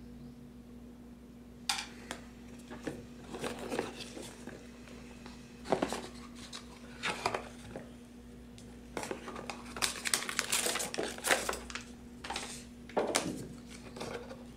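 Cardboard box and plastic packaging being handled and unpacked: scattered rustling, crinkling and light knocks, busiest about two-thirds of the way through.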